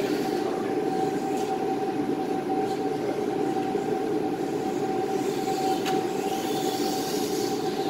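Steady mechanical drone with one constant tone running through it, and faint shifting whirring above it; a single brief click about six seconds in.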